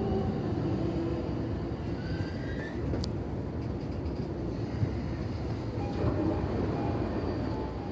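Running noise inside a JR East E231-series electric train car (MoHa E231-628) slowing at low speed: a steady rumble of the wheels and bogie with faint whining tones from the motor and gears, with a short click about three seconds in. On this car the gear unit makes an abnormal noise under braking, which the uploader suspects comes from the gears.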